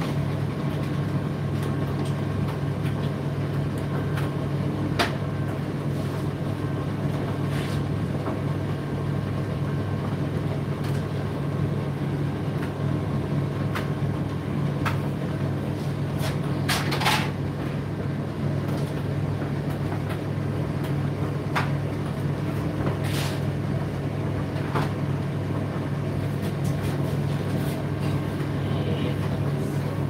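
Indesit IDC8T3 condenser tumble dryer running: a steady low motor and drum hum with faint steady whining tones above it. Occasional light clicks and knocks come through, the loudest cluster about two-thirds of the way through.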